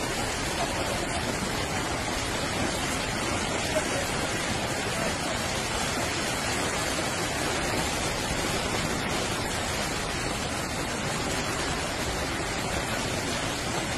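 Steady hiss of a heavy downpour and running floodwater, even and unbroken.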